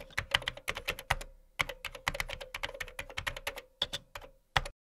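Typing on a keyboard: a rapid, irregular run of key clicks with a short pause about a second in, stopping just before the end.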